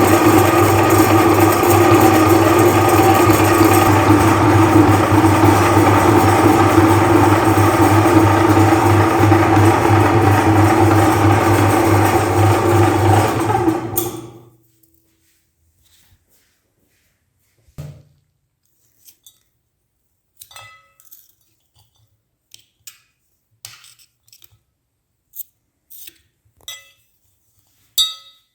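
Electric meat grinder running with a steady motor hum, then switched off about halfway through and winding down quickly. After it stops come scattered light clicks and clinks.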